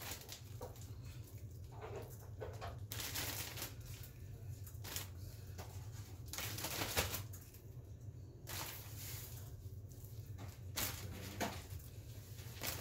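A plastic freezer bag crinkling and rustling in irregular bursts as raw chicken wings are dropped in two at a time, over a steady low hum.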